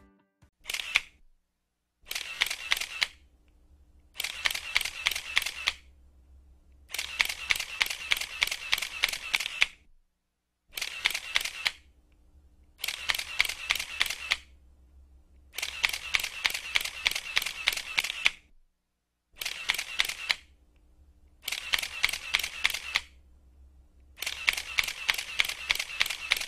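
Camera shutter sound effect firing in rapid bursts, like an SLR in continuous shooting mode. There are about ten runs of quick clicks, each lasting one to three seconds, with short silent pauses between them.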